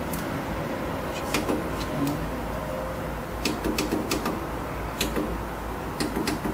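Push buttons on a traffic signal controller's front panel being pressed: about a dozen sharp clicks at an uneven pace, several in quick pairs, over a steady low hum.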